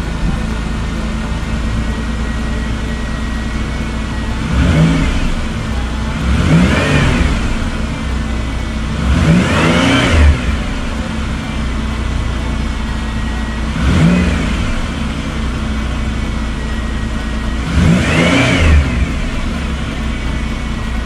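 A 2000 Chevy Impala's V6 engine idles steadily and is revved five times in short throttle blips, each rising and falling within about a second. It is running smoothly on a newly installed fuel pump.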